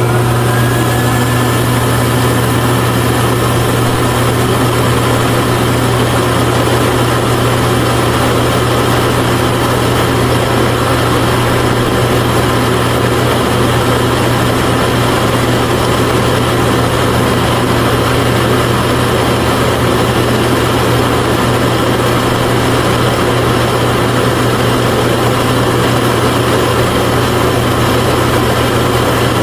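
Small motor running steadily, driving a miniature DIY grain mill through a belt, with a loud, even hum. A faint whine rises as it spins up at the start.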